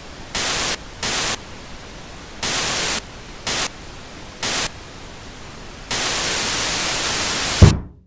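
Old television set hissing with static, surging loud in five short bursts and then one long stretch, ended by one heavy thump of a fist banging on the set, after which the static cuts off.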